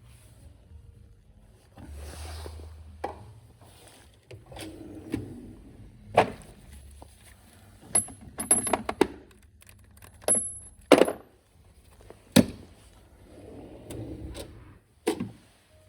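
Metal hand tools and parts clinking and knocking: a run of irregular sharp clicks and knocks, a few in the middle with a brief high metallic ring.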